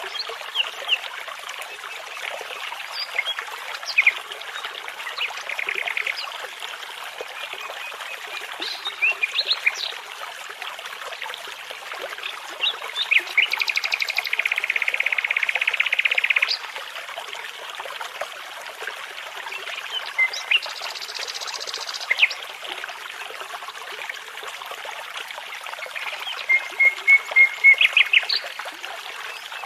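Songbirds singing and chirping over the steady rush of a babbling brook, with a long trilled phrase about halfway through and a quick run of repeated notes near the end.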